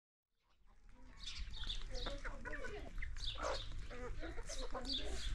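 Domestic hens clucking and calling as they feed, many short wavering calls overlapping, with high chirps above them. The sound fades in from silence in the first second.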